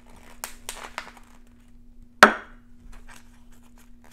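Plastic food pouch crinkling and scraping as cauliflower rice is squeezed out of it into a ceramic bowl, with a few brief scratchy strokes early on and one sharp knock about two seconds in, the loudest sound.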